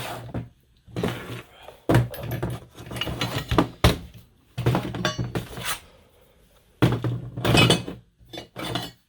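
Tools and hard objects being handled and set down on a surface: a string of irregular knocks, thunks and clinks, with short pauses between.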